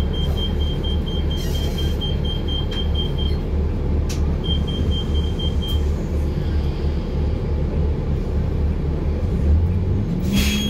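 City bus engine idling with a steady low rumble, heard from inside the bus while it stands still. A rapid string of high beeps, about four a second, plays for the first three seconds and again briefly in the middle, and a short hiss comes near the end.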